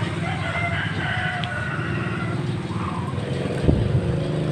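A rooster crowing, one long call of about two seconds, over a steady low motor hum. A single thump near the end.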